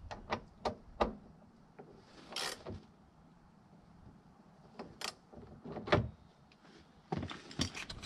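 Scattered clicks and knocks of truck door parts being handled and fitted back in place during reassembly. There is a brief scrape about two and a half seconds in, a louder knock about six seconds in, and a run of rattling near the end.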